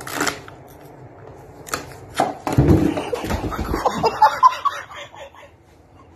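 A sharp pop as an exploding confetti box bursts open, then knocks and a scuffle, and a man's loud startled yelling and laughing.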